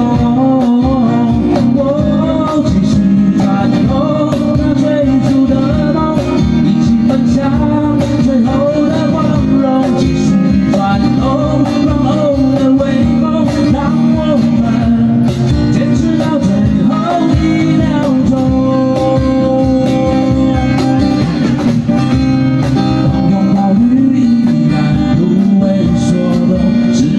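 Live acoustic band playing: two acoustic guitars strummed over a steady cajon beat, with a man singing the melody.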